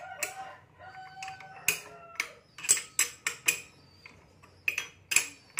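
Sharp metallic clinks of a 19 mm ring spanner and T-wrench against the clutch-bell nut of a Honda Beat scooter's CVT, about ten irregular strikes. The first is followed by a ringing metal tone for about a second.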